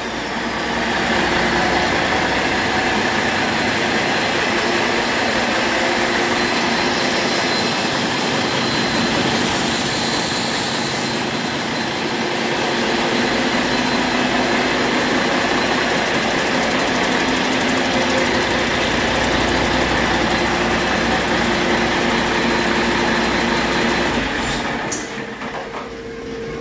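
Used Cummins ISX15 inline-six diesel engine running steadily on a test stand, out of the truck. It runs evenly, with no misses or knocks showing.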